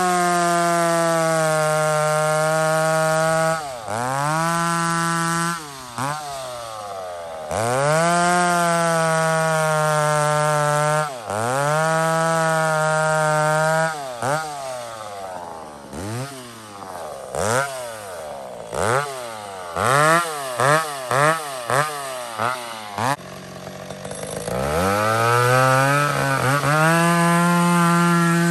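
McCulloch 850 two-stroke chainsaw bucking wood: revved up to full throttle and held steady for a few seconds at a time, dropping back between cuts. Midway it gives a quick run of short throttle blips, then falls to idle briefly before going back to full throttle for a long cut near the end.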